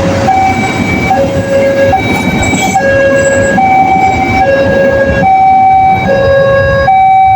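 Railway level-crossing warning siren of the Daop 2 Bandung type, sounding a two-tone high-low alternation that switches about every 0.8 s. Under it runs the rumble of a passing train, fading over the last couple of seconds.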